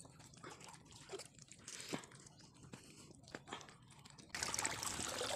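Faint scattered clicks and crunches of things being handled in shallow seawater. About four seconds in, a louder steady rush of splashing water sets in abruptly.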